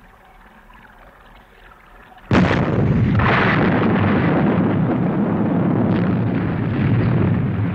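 Explosion sound effect for the enemy craft being destroyed. A faint low hum gives way, about two seconds in, to a sudden blast that carries on as a long, dense rumble.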